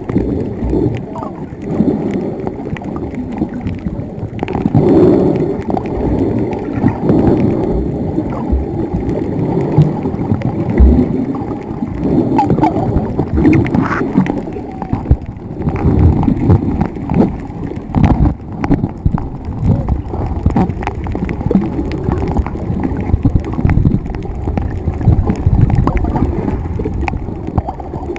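Muffled water noise heard through a camera held underwater while snorkeling: irregular sloshing and gurgling, with scattered knocks.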